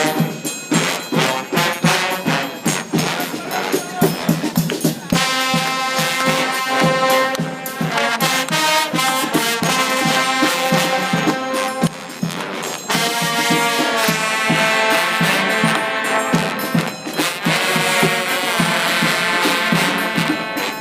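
Trombone choir playing sustained brass chords over drumming. The first few seconds are mostly drums, the trombones come in at about five seconds, and there is a short break in the chords about halfway through.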